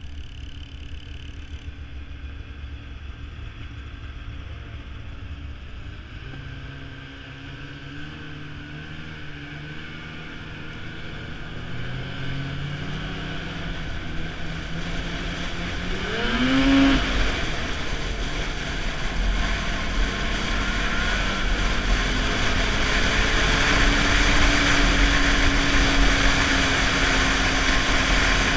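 Snowmobile engine running on the trail and speeding up: its note rises sharply about sixteen seconds in, then holds a steady higher pitch while the rushing noise of the ride grows louder.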